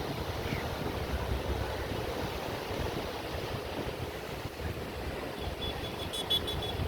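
Sea waves washing on the shore in a steady surging rush, with wind buffeting the microphone.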